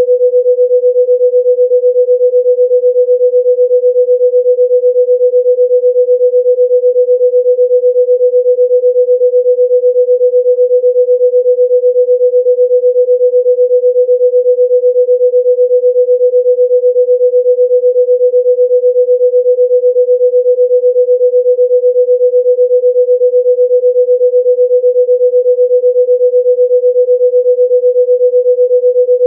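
A single steady, mid-pitched pure electronic tone, held unchanged throughout: a sine tone played as a healing-frequency sound.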